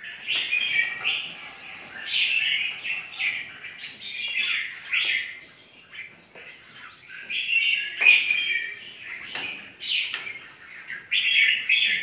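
Caged red-whiskered bulbuls chirping, short calls coming in quick bursts one after another, with a few sharp clicks among them.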